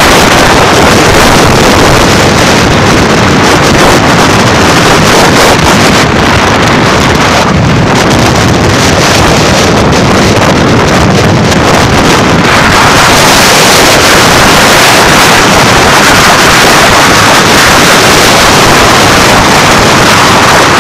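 Loud, steady wind rushing over the phone's microphone in a moving car, mixed with road and traffic noise; it grows hissier about two-thirds of the way through.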